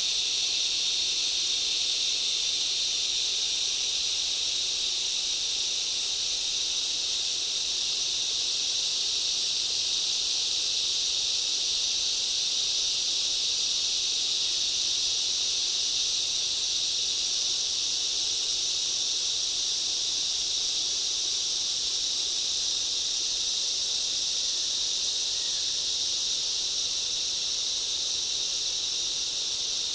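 Dense, steady chorus of rainforest insects: a high, shrill hiss made of several overlapping steady pitches, with no pauses or changes.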